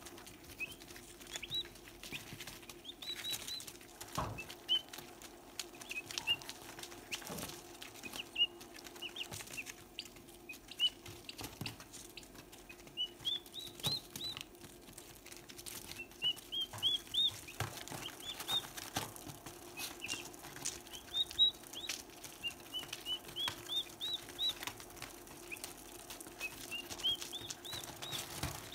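Turkey poults peeping in runs of short, high notes that rise and fall, with scattered sharp taps and rustles of beaks pecking on newspaper, over a steady low hum.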